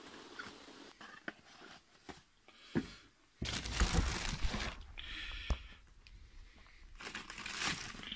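Clear plastic packaging bag crinkling and rustling, with small clicks and knocks, as wrapped parts are handled and lifted out of a cardboard box. It is faint at first and grows into irregular rustling about three and a half seconds in.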